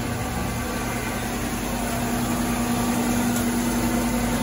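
Steady electric motor hum: one even, unchanging drone with no cutting strokes or breaks.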